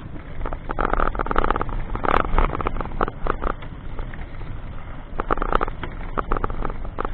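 Rattling and road rumble from a vehicle moving along a rough paved road, with two spells of dense clattering, about a second in and again about five seconds in.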